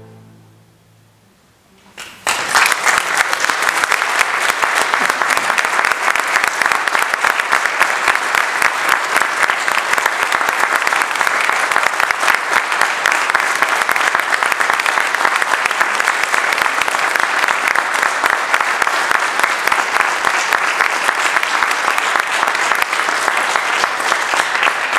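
Audience applause breaks out suddenly after a brief hush about two seconds in, and carries on loud and steady.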